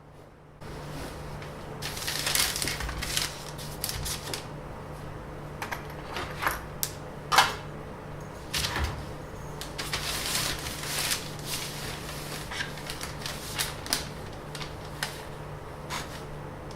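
Irregular sharp clicks and short rustles of objects being handled, over a steady low hum that comes on about half a second in.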